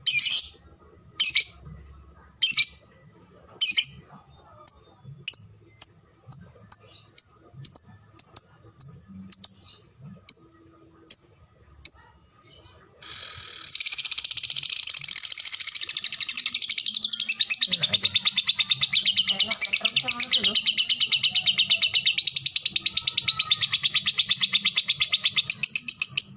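A lovebird calling. First come single sharp high chirps (ngetik), about a second apart at first and quickening to about two a second. About 13 seconds in, it breaks into a long unbroken rapid chattering trill (ngekek) lasting about twelve seconds.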